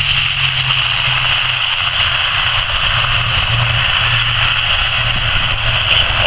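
Twin turboprop engines of an Aer Lingus Regional ATR airliner rolling out on the runway just after touchdown: a steady drone with a high turbine whine over a low propeller hum.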